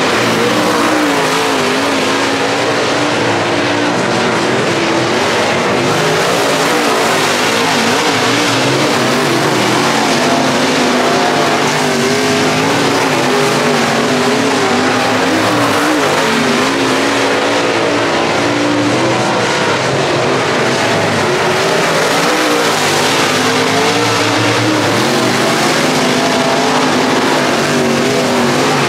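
Dirt super late model race cars running on track, their engines repeatedly rising and falling in pitch as they go on and off the throttle, loud and unbroken.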